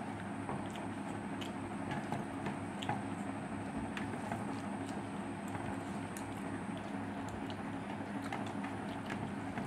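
Eating rice and curry by hand from a steel plate: soft squishing as fingers mix the rice, with scattered light clicks, over a steady low background hum.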